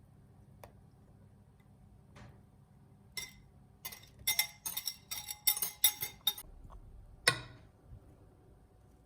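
A metal utensil clinking against a glass or ceramic bowl: a single click, then a quick run of about ten clinks, then one louder knock with a short ring.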